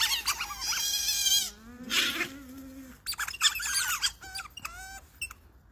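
Group of otters squeaking and chirping in a rapid string of short, high, pitch-bending calls, the begging calls otters make when they expect food. About two seconds in there is a lower, longer drawn-out sound among the chirps.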